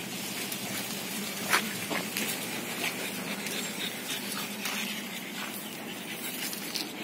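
Pugs panting, with scattered short clicks and one sharper click about one and a half seconds in.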